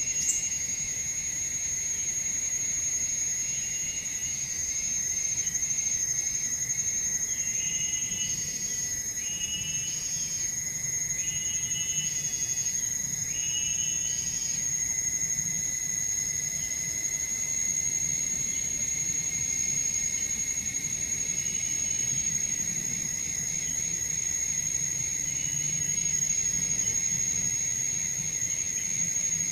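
Insects in the forest keeping up a steady, high-pitched drone. Four short chirping calls come about two seconds apart partway through.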